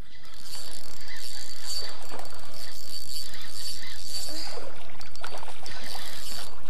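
Spinning reel being cranked, its gears whirring as line is wound in on a hooked largemouth bass, with a thin steady high whine for the first four seconds or so.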